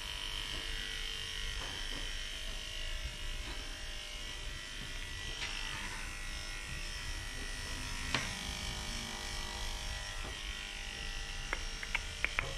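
Corded electric pet clippers running with a steady hum while shaving a large mat out of a long-haired cat's coat. A few light clicks come near the end.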